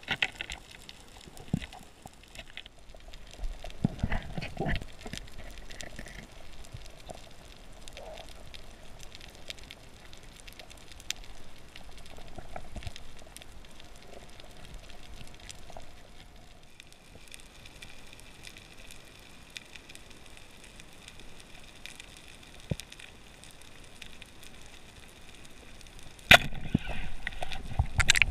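Underwater sound picked up by a dive camera: sparse crackling clicks over a low hiss, joined about halfway through by a faint steady high whine. Near the end comes a sudden loud knock, followed by louder, rougher water noise.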